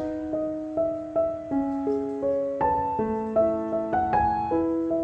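Background piano music: a gentle melody of single struck notes, about two a second, each ringing and fading over held lower notes.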